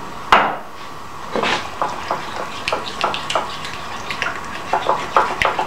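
A utensil stirring thick mayonnaise and rice vinegar in a ceramic bowl: irregular wet squelches and light clicks against the bowl.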